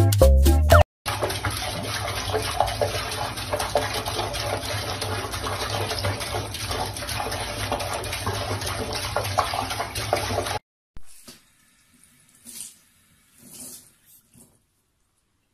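Tap water running steadily into a sink while a cat paws at the stream; it cuts off abruptly, then only a few faint, brief splashes follow.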